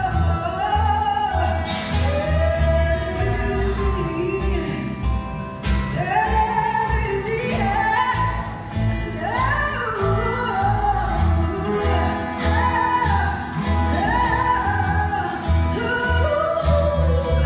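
Live band performance heard from the audience: a woman singing lead over acoustic guitar, upright double bass and drums, with a steady pulsing bass line underneath.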